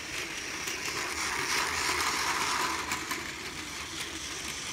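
Battery-powered Plarail toy train running on plastic track: a steady whir from its small gear motor with rattling wheels, louder for a second or two midway.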